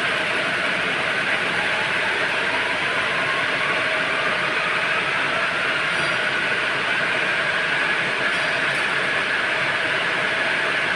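Needle loom machines for belt webbing running steadily: an even, unbroken mechanical noise with a faint high tone in it.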